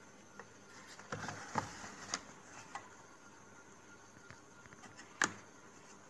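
Plastic detergent dispenser drawer of a front-load washing machine being pulled open: a run of clicks and knocks, then one sharp click near the end.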